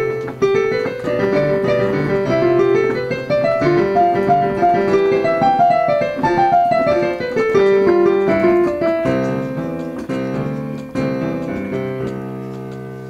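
A piano sonatina played by a child: quick running passages that climb and fall, then slower held chords, the last one left to ring and fade near the end.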